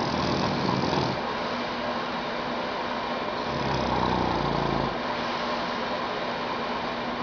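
A man snoring in slow, rattling breaths, two snores about three and a half seconds apart, over a steady background hiss.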